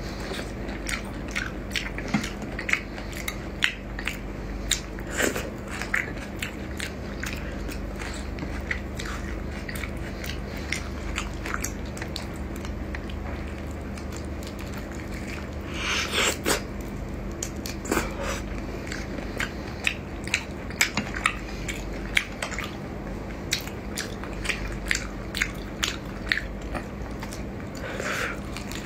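Close-up biting and chewing of whole shell-on shrimp in sauce: many short crunchy, wet clicks and smacks, with a denser flurry about halfway through, over a steady low hum.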